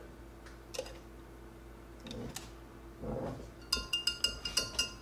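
Wire whisk stirring batter in a glass measuring jug, with a few soft taps, then a quick run of ringing clinks of metal on glass near the end as the whisk beats against the jug's sides.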